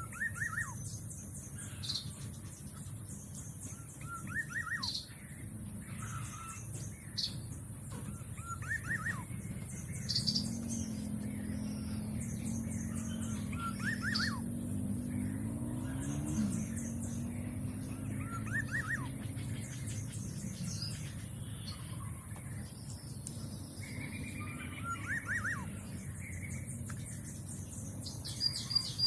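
Wild birds calling: a short call of three or four quick falling chirps, repeated every few seconds, with scattered higher chirps, over a steady high insect hiss. A low droning hum rises and falls in pitch through the middle.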